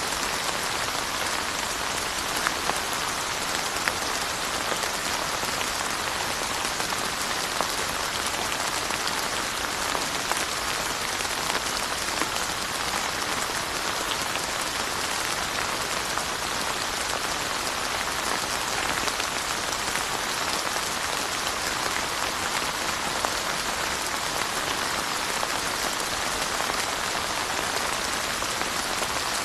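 Steady rain falling, a dense even hiss with many small drop patters landing on surfaces.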